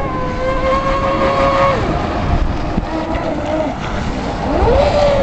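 Brushless electric motor of a radio-controlled catamaran boat, 4-pole on a 6S LiPo, whining under throttle: a steady high whine that drops away about two seconds in and rises again near the end as the throttle is opened. The boat is still running after its hull was swamped, its electronics waterproofed.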